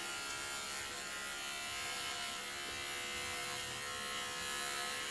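Electric hair clipper running with a steady buzz as it is worked over a comb through the hair.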